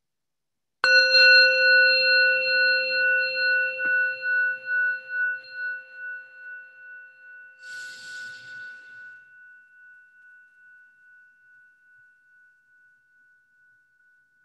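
Metal singing bowl struck once with a wooden striker about a second in, ringing with several tones at once and pulsing as it slowly fades over some twelve seconds; the ring opens a moment of meditative stillness. A brief hiss about eight seconds in.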